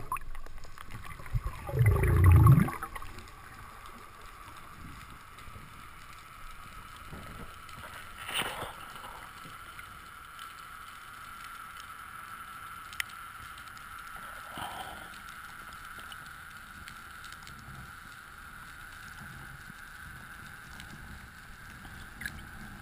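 Underwater water noise: a loud low rush about two seconds in, then a steady quiet hiss with a faint high whine, broken by two short bursts about a third and two-thirds of the way through.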